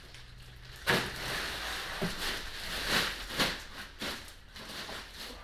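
A series of knocks and rustling from things being handled. The first and loudest knock comes about a second in, and several more follow over the next three seconds.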